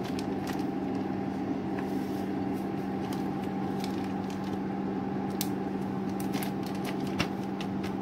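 Plastic zip-lock bag crinkling and clicking in the hands as it is filled, sealed and pressed flat, with a scatter of short crackles. A steady low hum runs underneath.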